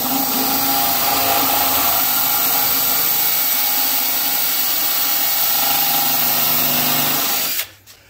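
Power drill spinning a swage bit into the end of a 5/8-inch copper tube, running steadily as it expands the tube into a bell end. It stops suddenly near the end.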